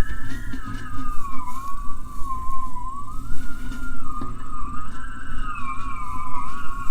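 Kite-reel resonator sounding as the wind pulls on the kite line: one wavering tone that drifts slowly up and down in pitch, like a slow siren, over a low rumble.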